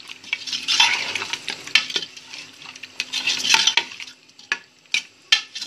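Steel spoon stirring and scraping mutton and masala around a metal pot as it fries in ghee (the bhuna stage of the curry), with the spoon clinking against the pot. There are two longer scraping stretches, about a second in and about three seconds in, and a few sharp clinks near the end.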